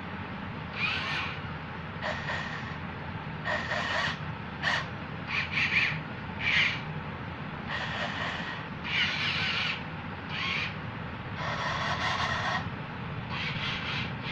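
Small yellow plastic gear motors of a homemade wooden RC tractor running with a steady low hum, broken by a dozen or so short, irregular squeals and scrapes as the toy crawls along.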